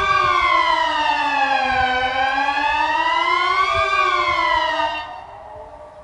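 Wiedmann & Dettwiler electronic siren (horn-loudspeaker array run by a Kockum Sonics ET 60/6 controller) sounding the Swiss general alarm: one tone rising and falling smoothly about every four seconds. It cuts off about five seconds in, leaving a fainter distant Kockum Sonics ET 500 mobile siren still sounding.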